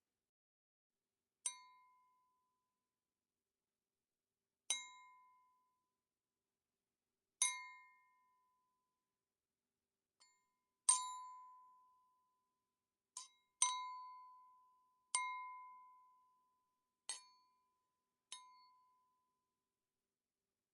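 A wine glass struck about ten times at uneven gaps of one to three seconds. Each hit rings at the same clear pitch and fades within a second or so. A very light tap comes about midway, and two hits fall close together just after it.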